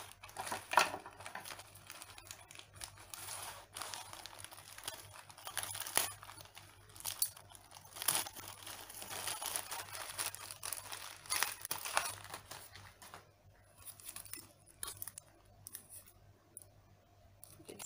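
Clear plastic wrapping crinkled and torn open by hand, in irregular bursts of crackling. It thins to a few soft rustles over the last few seconds.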